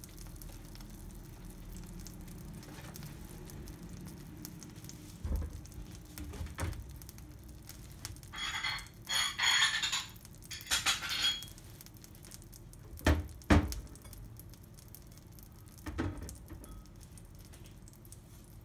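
A pot of ramen broth simmering on the stove with a low steady sound. From about 8 to 11 seconds in, black pepper is added, a gritty rattle in several quick bursts. A few sharp knocks of kitchenware come through, two close together about 13 seconds in.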